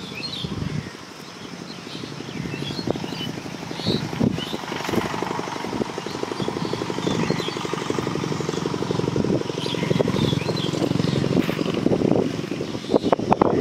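An engine running with a fast, even putter that grows louder over several seconds, with scattered bird chirps above it.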